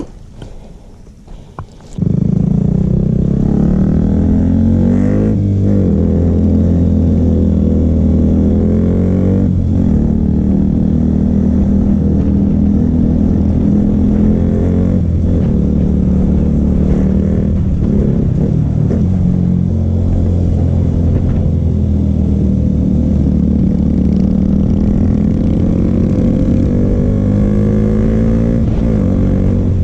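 Royal Enfield Himalayan single-cylinder engine running through an aftermarket Akrapovic exhaust while the bike is ridden. It comes in suddenly about two seconds in, then runs steadily with a deep exhaust note, the engine speed rising and falling a few times.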